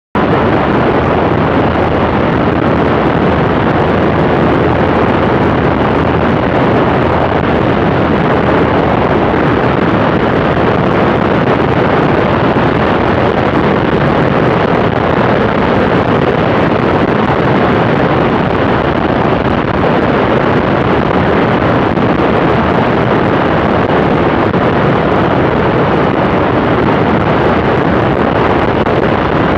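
Cessna Skylane in cruise flight: a steady loud drone of engine and propeller mixed with wind rushing over the microphone.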